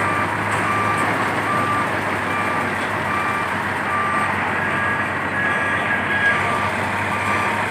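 A machine's warning alarm beeping at a steady pace, short beeps a little faster than once a second, over the steady noise of running heavy machinery. A second, higher beep joins in for a while in the second half.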